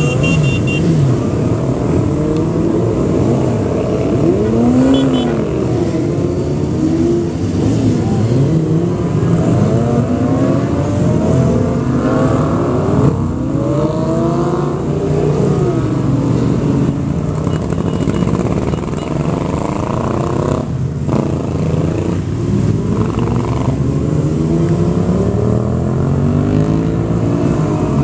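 A stream of sportbike engines passing one after another, riders revving and accelerating through the gears, so that many overlapping engine notes climb and fall as each bike goes by.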